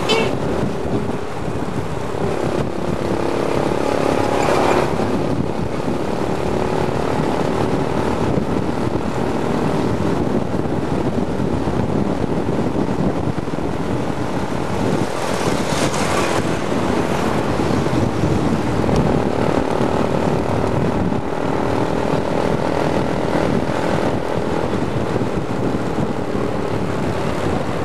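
Steady engine drone and road noise of a moving vehicle, heard from on board, with wind rushing over the microphone. It swells briefly about four seconds in and again around sixteen seconds.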